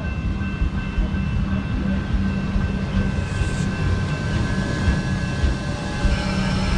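Electric train running by on the line, a continuous low rail rumble with steady whining tones from its motors; a higher hiss joins in about six seconds in.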